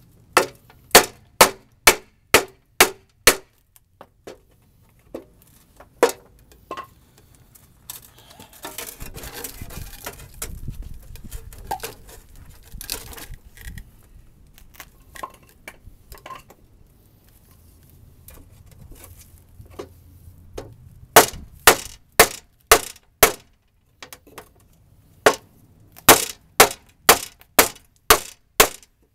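Hammer blows on a wooden block held against a steel truck bumper, knocking its bent parts down to straighten it. The blows come in three quick runs of six to eight at about two a second, with a few seconds of scraping noise between the runs.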